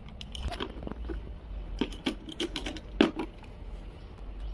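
Plastic toy cookware being handled, a toy corn cob and small pot knocking together: irregular light clicks and taps, with a sharper knock about three seconds in.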